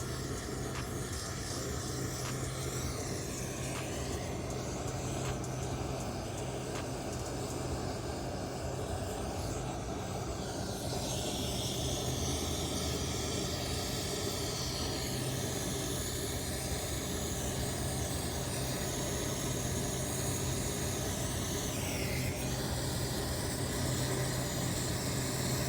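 Steady hiss of a brazing torch flame heating a copper refrigerant line-set joint, over a constant low hum.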